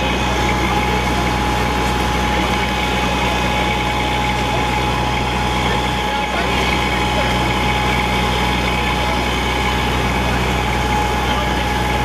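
Fire pumper engine running steadily at the drill while drafting water from a portable tank through hard suction hoses: a low engine drone with a steady high whine over it and the rush of water.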